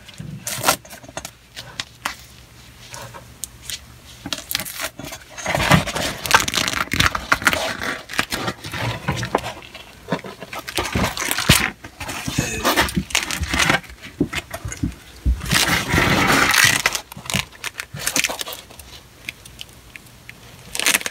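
A self-adhesive patch sheet being handled and wrapped around a cast iron drain pipe with rubber-gloved hands: irregular crinkling, crackling and scraping, loudest in two stretches of several seconds, one near the middle and one a little later, with quieter rustling between.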